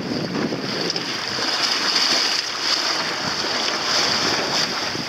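Wind buffeting the microphone over the steady rush and splash of water along the hull of a small sailboat moving through choppy waves.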